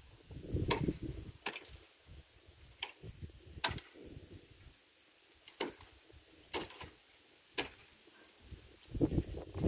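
Bamboo being chopped: a series of about seven sharp, irregular knocks, roughly a second apart, with a low rumble near the start and again near the end.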